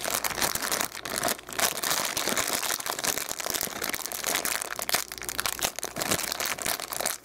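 Thin clear plastic bag crinkling and rustling as hands work a wall charger out of it: a continuous run of small crackles.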